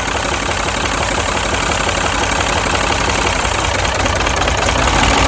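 Mini's four-cylinder petrol engine idling roughly with a misfire, while its ignition coils are pulled one by one to find the dead cylinder. The misfire comes from a failed ignition coil on cylinder 3.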